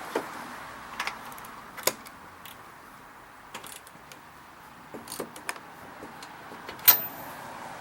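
Hand tools being handled: a few irregular sharp clicks and knocks, the loudest a clink about seven seconds in.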